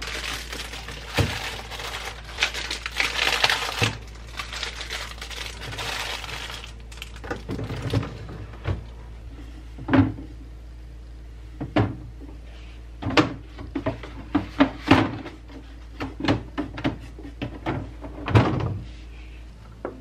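Rustling and crinkling of a plastic produce bag for the first several seconds. It gives way to a string of knocks and clacks as produce is set into the LG fridge's plastic crisper drawers and the drawers are handled.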